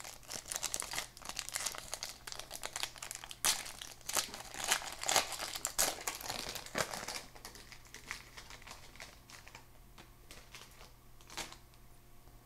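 A foil baseball card pack being torn open and its wrapper crinkled, a busy crackling for about seven seconds, then softer scattered rustles with a single sharper click near the end.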